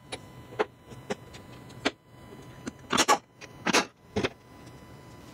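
Impact wrench firing in short bursts, three in quick succession about three to four seconds in, with lighter clicks and knocks of tool on metal before them, as it runs out the subframe bolts.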